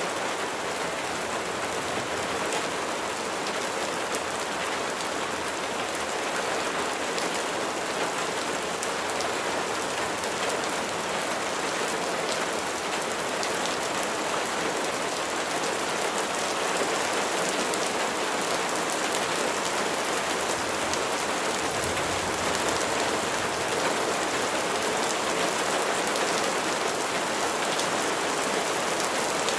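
Steady rain falling and pattering on a surface, a dense even hiss sprinkled with many small drop impacts.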